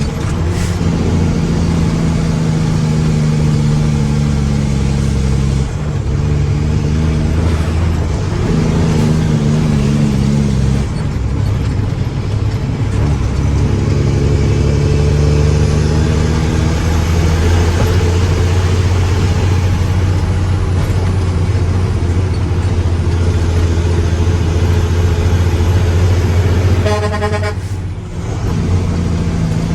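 Mack truck's diesel engine running, its pitch shifting up and down several times as the engine speed changes. A vehicle horn toots briefly near the end.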